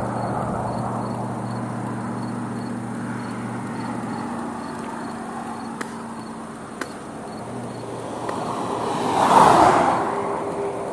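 A road vehicle's engine runs with a steady low hum that fades after about four seconds. About nine seconds in, a swell of noise rises and falls, like a vehicle passing.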